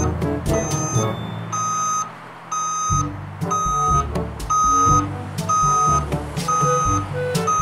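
Heavy-equipment backup alarm beeping steadily about once a second, heard over background music with a moving bass line and beat.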